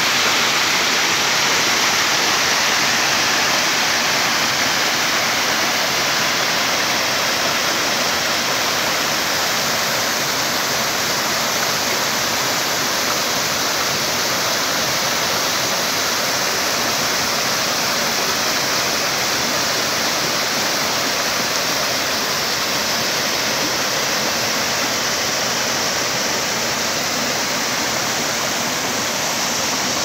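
Small waterfall and the rocky stream below it: a steady, even rush of falling and running water.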